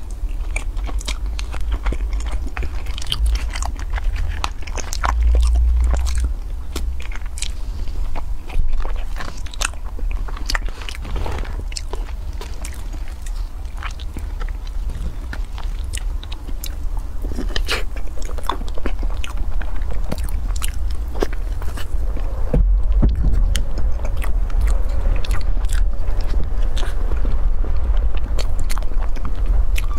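Close-miked eating: a woman biting and chewing a soft matcha tiger-skin sponge cake roll, with many sharp wet mouth clicks and smacks over a steady low hum. The chewing grows louder about two-thirds of the way in.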